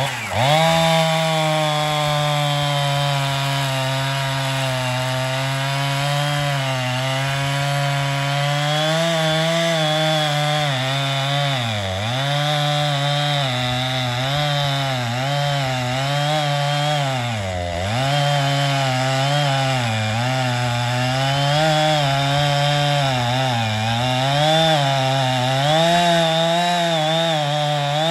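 Two-stroke chainsaw running at high revs while cutting through the trunk of a large ash tree. Its pitch sags again and again as the chain bites and bogs in the wood, most deeply twice, about twelve and eighteen seconds in.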